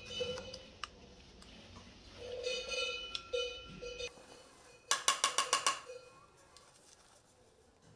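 Small metal blade scraping and shaving a bamboo tube, with light clicks and scrapes over faint sustained tones. About five seconds in comes a quick run of about seven sharp, ringing taps, the loudest sound here.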